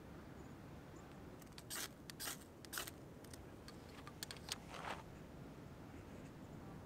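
Hands handling a paper fire-starter bag and a fire plug on split firewood: three quick crinkling scrapes about two seconds in, a few light clicks, then a longer scrape near five seconds.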